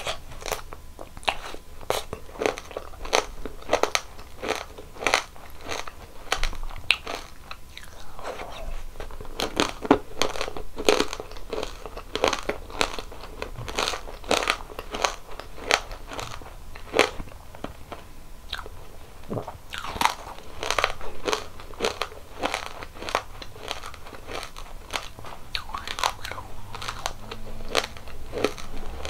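Close-miked biting and chewing of crispy ice cream coated in frozen Saekomdalkom candy: a quick, irregular run of sharp, crisp crunches.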